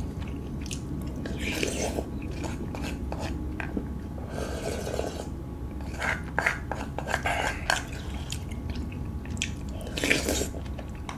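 Close-up eating sounds: chewing and slurping food from a black stone bowl held to the mouth, with chopsticks clicking against the bowl in irregular short taps.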